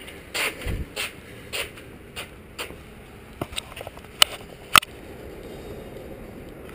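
Scattered scrapes and shuffles of a mountain bike being leaned against a garage door and the rider stepping back, picked up close by a chest-mounted camera. Two sharp clicks come a little over four seconds in, about half a second apart.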